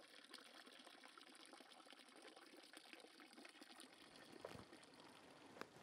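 Near silence: faint outdoor room tone with a few soft ticks.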